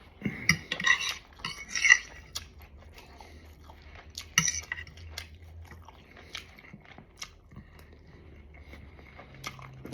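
Fork or spoon clinking and scraping on a plate while eating, with chewing in between. The clinks come in a cluster in the first two seconds and again about four and a half seconds in, then thin out to scattered light taps.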